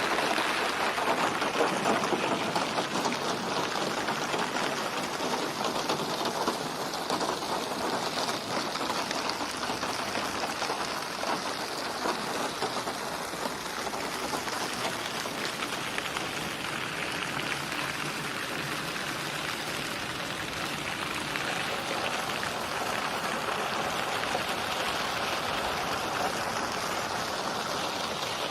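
Steady rain falling, a dense hiss of many small drops, a little heavier in the first several seconds.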